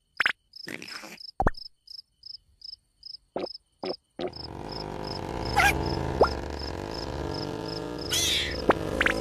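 Cricket chirping: a regular high chirp a little over twice a second, with a few short scattered noises in the first four seconds. About four seconds in, a dense steady background comes in, with a few quick rising and falling whistles over it.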